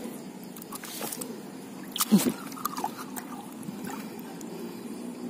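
A hand groping and splashing in shallow water among stones while feeling for shrimp: small splashes and trickles with scattered clicks, and one louder sudden sound about two seconds in.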